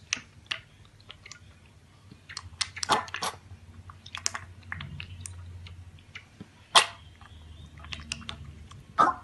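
Piglet drinking milk from a steel bowl: irregular wet slurps and smacking clicks, with a few louder smacks, the loudest about seven seconds in and another near the end.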